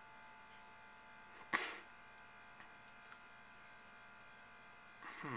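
Faint, steady electrical buzz made of several fixed tones. It is broken about a second and a half in by one short, sharp puff of noise.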